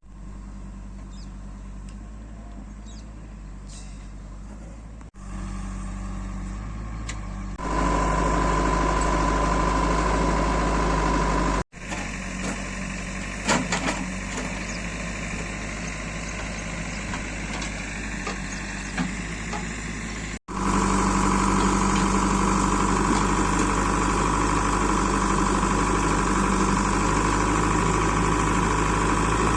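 Engines of heavy recovery machinery running steadily, heard in several separate shots that cut in and out suddenly. In the two loudest stretches a steady high whine sits over the engine noise.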